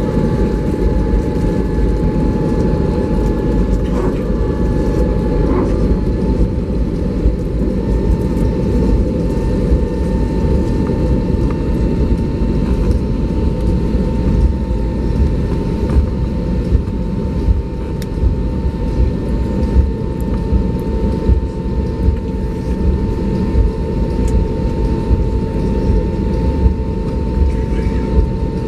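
Airbus A320neo cabin noise while taxiing: a loud, steady low rumble with a thin, steady whine held above it.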